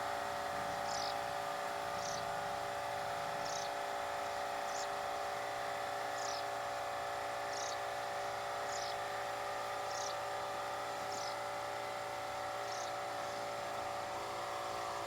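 Outdoor ambience: a steady droning hum with a short high chirp repeating about once a second.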